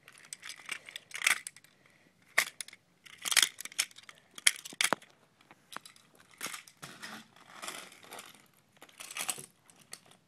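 Toys being handled: a string of sharp clicks and clacks with short rustling bursts in between, irregular.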